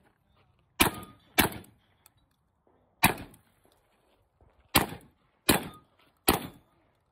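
Six shotgun shots fired at steel targets: two in quick succession about a second in, a single shot near the middle, then three in a steady run near the end, each a sharp crack with a short echoing tail.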